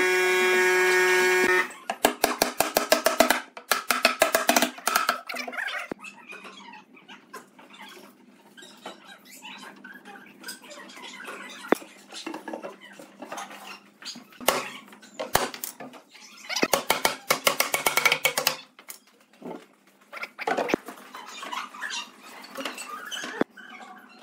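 Pine boards knocking and clattering in scattered clusters of quick clicks as finger-jointed panels are handled and fitted together. A steady humming tone cuts off suddenly about a second and a half in.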